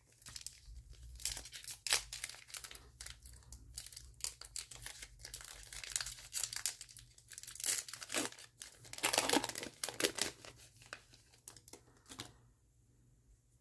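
Foil wrapper of an NBA Hoops trading card pack being torn open and crinkled by hand, in many short irregular crackles. The crinkling stops near the end.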